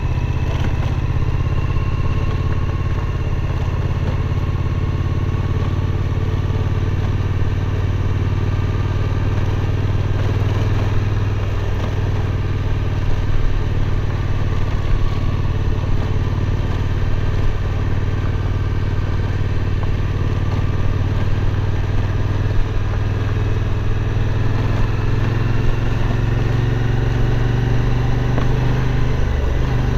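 Suzuki V-Strom 1050's V-twin engine running steadily while the bike is ridden, its note shifting slightly a couple of times.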